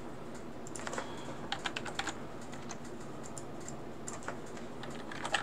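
Computer keyboard typing: short runs of keystrokes about one to two seconds in, a couple more around four seconds, and another run near the end, entering a course prefix and number into a search form.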